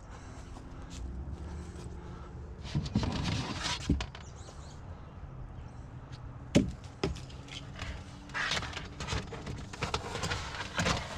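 Hollow knocks and scrapes of plastic storage totes and lids being handled and stacked, with a sharp knock about six and a half seconds in and another just after, then a run of rustling and bumping. A faint steady low hum lies underneath.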